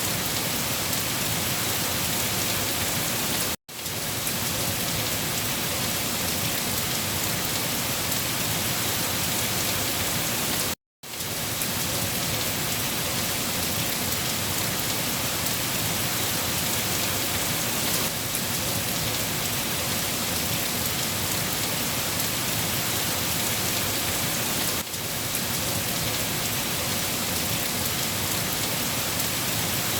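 Steady rain falling on a surface, a dense even hiss of drops. The sound cuts out to silence for a split second twice, about three and a half and eleven seconds in.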